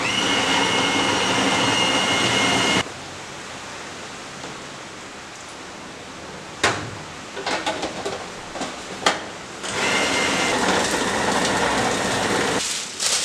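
Countertop food processor motor running in two bursts of about three seconds each, with a steady whine, working seeded bread dough; each burst cuts off abruptly. Between the bursts come a few clicks and clatters of the plastic bowl, lid and pusher being handled.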